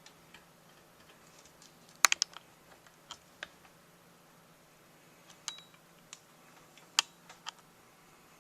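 A few light clicks and taps: a quick cluster of three about two seconds in, then scattered single clicks, over a faint steady hum.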